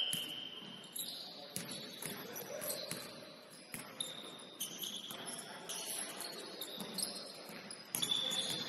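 Sneakers squeaking on a basketball court: a string of short, high squeaks at shifting pitches, with the thuds of a basketball bouncing.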